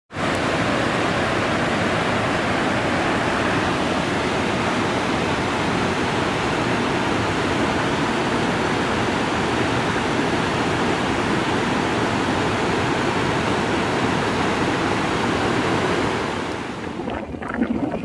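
Steady rush of a waterfall pouring into its plunge pool. Near the end it cuts off and gives way to quieter street noise.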